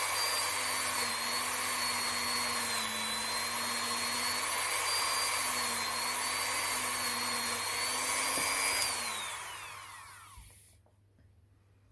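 Dremel rotary tool spinning a nylon brush to scrub dirt off small steel revolver parts: a steady high whine that wavers a little in pitch. About nine seconds in it is switched off and winds down, its pitch falling until it stops.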